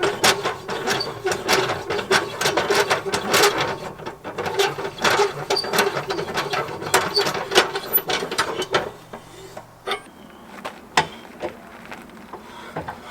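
Camper trailer jack being run, a steady gear whir with rapid clicking that stops about nine seconds in.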